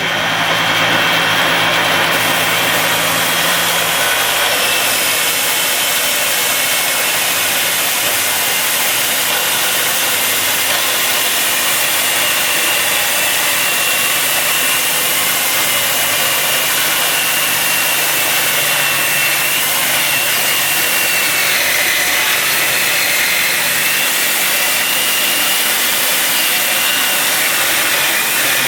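Table saw running steadily while ripping a long strip from a half-inch acrylic (plexiglass) sheet: a loud, even whir with a high whine from the blade in the plastic.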